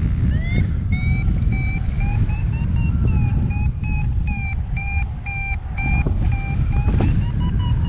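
Paragliding variometer beeping, about three short beeps a second and edging up in pitch: its climb tone, meaning the glider is going up in lift. Steady wind noise on the microphone underneath.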